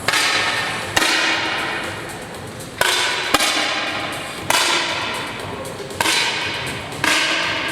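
Air rifle shots echoing in an indoor range: six sharp cracks at irregular intervals of one to two seconds, each trailing off in a long reverberant tail. The rate points to several rifles firing, not one shooter.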